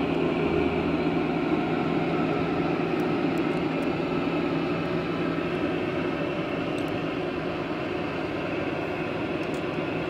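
Volvo skid-steer loader's engine running steadily with a hissing rush. A low hum under it fades out in the first second or two, and the whole sound gets slowly a little quieter.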